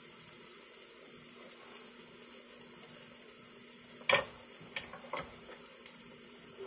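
Veggie burger frying in a hot skillet, a steady sizzle. About four seconds in there is a sharp knock, with two lighter clicks soon after.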